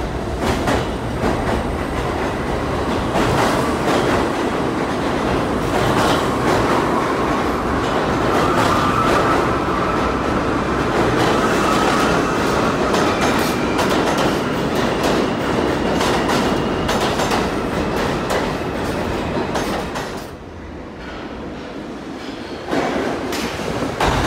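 R68 subway train running on the rails, its wheels clicking rapidly over rail joints, with a faint high tone for several seconds midway. The sound drops suddenly about twenty seconds in and comes back loud shortly before the end.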